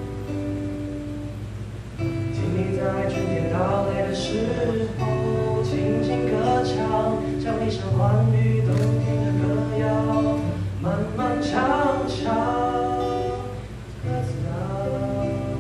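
Music with acoustic guitar and a sung melody.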